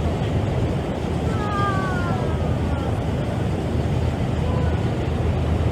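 Steady wind noise on the microphone over the rush of water and the running of a harbour ferry. About a second and a half in, a faint falling cry sounds, with a weaker one near the end.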